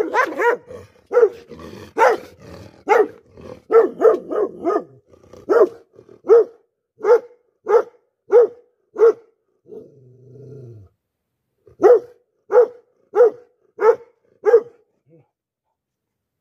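A large dog barking: a quick run of barks at first, then single barks about every three-quarters of a second. Around ten seconds in there is a short low rumbling sound, then a few more barks before they stop near the end.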